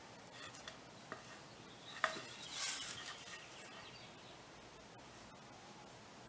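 Faint handling of pine boards on cardboard as one board is set against another at a corner: a few light knocks, the sharpest about two seconds in, followed by brief rustling.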